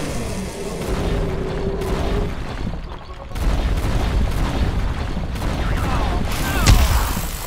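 Cartoon fight sound effects: a deep boom and rumbling blast starting a little under halfway in as earth and rocks are thrown up, with a sharp loudest hit near the end.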